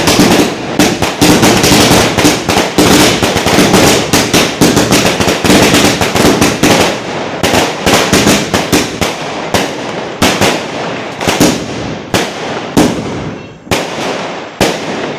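Mercury Sky Warrior 200-shot sky shot fireworks cake firing a dense, rapid run of shots and aerial bangs; over the last few seconds the shots come further apart, about one a second.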